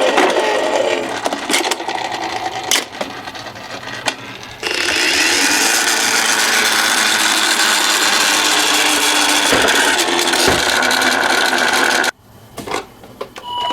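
Toy minicars rolling down a slope: a steady, loud whirring rattle of small wheels on the track, with a few knocks in the first seconds. The rolling noise cuts off suddenly near the end.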